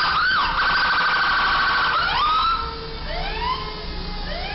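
Emergency vehicle siren switching modes: a fast yelp, then a rapid warble for about two seconds, then slower rising wails, quieter from about two and a half seconds in. A low engine rumble from passing traffic runs underneath.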